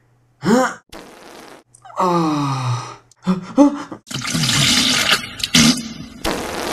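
A man's groans and gasps, short sounds that slide up and down in pitch, then a toilet flushing from about four seconds in.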